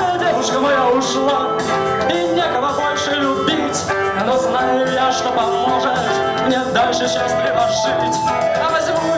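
Live band playing a song: guitar and drums with regular cymbal strokes, and a singing voice.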